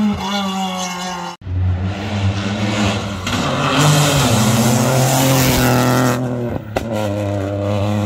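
Rally car engines running at full throttle, in clips cut together with abrupt breaks about one and a half and six and a half seconds in. The engine note climbs and drops with the gear changes, and in the middle there is a rush of noise as a car passes close by.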